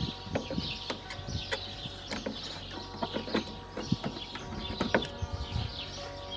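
Irregular clicks and knocks of hands handling parts in a Daewoo Matiz engine bay, the loudest about four and five seconds in, with birds chirping throughout.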